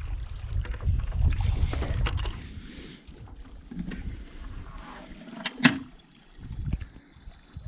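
Wind buffeting the microphone, easing after about two seconds into scattered handling and scraping as a stand-up paddleboard is pulled up against a rock ledge and stepped off. A single sharp knock a little over halfway through.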